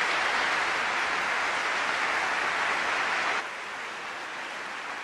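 Large audience applauding at the close of a debate speech. The applause is loud at first, then drops suddenly to a quieter level about three and a half seconds in and carries on.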